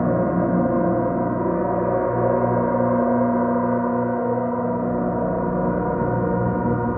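Electro-Faustus Drone King drone synthesizer played through a Microcosm pedal with heavy delay and reverb: a dense, sustained drone of many layered steady tones, with a slow pulsing in the low end.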